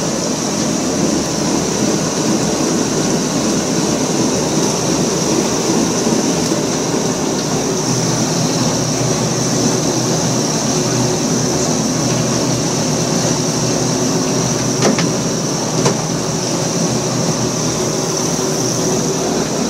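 Lobster boat's engine and deck machinery running steadily, with a constant high whine over a low rumble. Two sharp clicks about a second apart come late on.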